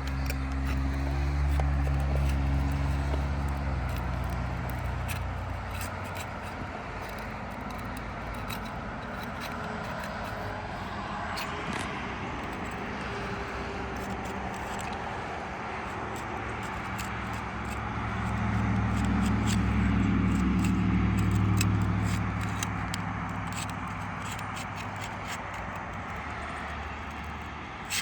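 Two motor vehicles passing, the first already going at the start and fading by about five seconds in, the second swelling and fading around eighteen to twenty-three seconds in. Under them, light scraping and small clicks of tools working a shingle loose.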